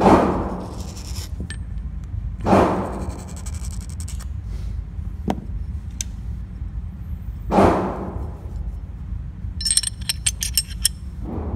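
Muffled gunshots from other shooters in an indoor range, three loud reports a few seconds apart and a fainter one near the end, each booming off the walls, over a steady low hum. Between the shots, light metallic clicks and clinks of the stripped pistol's slide and parts being handled on the bench.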